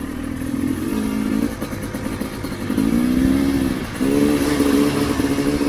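Enduro dirt bike engines running under throttle. The nearer one revs up twice, a little under three seconds in and again about four seconds in.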